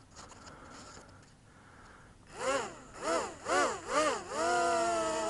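Micro quadcopter's small electric motors whining up and down in four quick throttle blips about half a second apart, then held at a steady high whine as the throttle is opened for a test flight.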